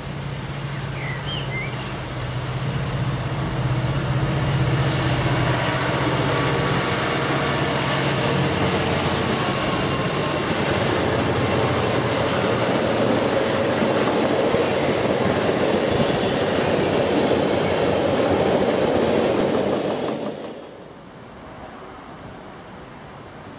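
A Class 66 diesel locomotive, with a two-stroke V12 engine, approaches and drones low and steady. Then a long train of container flat wagons rumbles past on the rails. About 20 seconds in the noise drops sharply to a quieter, more distant train sound.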